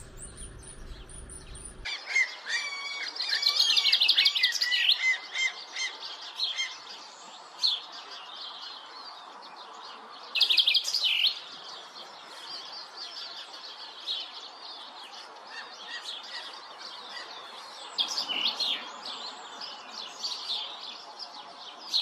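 Small songbirds chirping and twittering in quick high trills, densest a few seconds in and again in short bursts around ten and eighteen seconds in, over a faint steady background.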